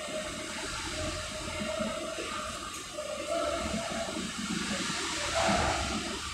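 Steady rushing din inside a ferry's steel vehicle deck, with a loaded Mitsubishi Fuso truck's diesel engine running as it creeps forward, its load catching on the deck ceiling.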